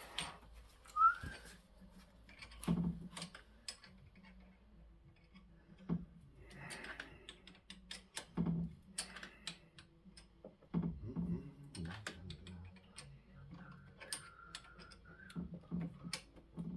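Scattered light clicks and knocks of hand tools working on a scooter's front fork while the fork cap is tightened. A brief rising whistle-like tone comes about a second in, and a steadier one lasts a second or so near the end.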